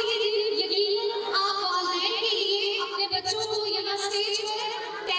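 A woman singing into a microphone, holding long, steady notes, amplified over a PA.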